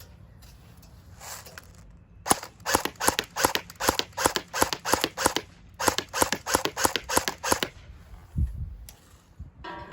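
AK-47 airsoft gun firing BBs on semi-automatic: a quick string of sharp shots, about four a second, with a short pause partway through. A dull thump follows near the end.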